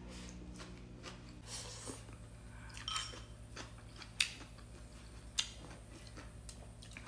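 A person quietly chewing a mouthful of stir-fried rice noodles, with soft mouth sounds and a few faint sharp clicks, the clearest about four seconds in and again about five and a half seconds in.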